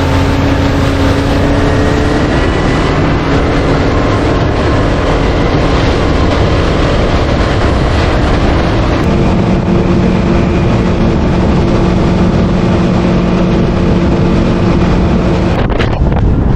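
Boat's outboard motor running under way, its engine note shifting about halfway through, with heavy wind buffeting the microphone.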